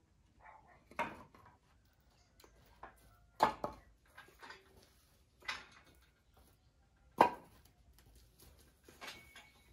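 Irregular knocks and clunks of hard objects being handled and set down, four louder strikes spread a second or two apart with lighter taps between.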